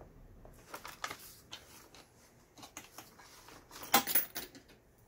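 Small plastic clicks and rattles of a compact Janome sewing machine being handled as its upper thread is threaded by hand. There is a sharper clatter of clicks about four seconds in.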